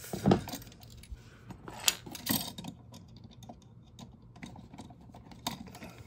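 Scattered light metallic clicks and clinks from a wall outlet's steel mounting strap and hand tools being handled at the electrical box, with sharper clicks just after the start and about two seconds in.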